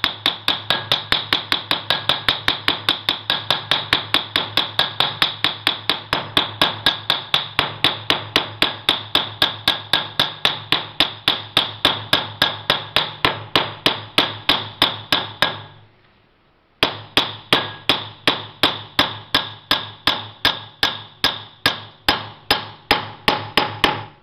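Hammer tapping steadily on the pulley shaft of a John Deere 507 Gyramor mower, about three or four light metallic strikes a second, to work the shaft into its new bearings against a floor jack pushing up from below. The tapping stops for about a second around two-thirds of the way through, then carries on at the same pace.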